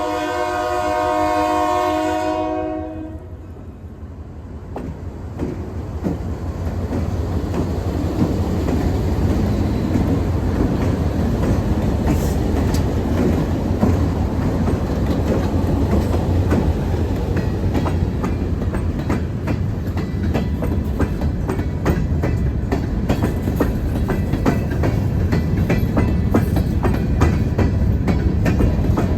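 Locomotive air horn sounding a multi-note chord that cuts off about three seconds in. Then the train rumbles past, the rumble building over several seconds, with steady clickety-clack of wheels over the rail joints.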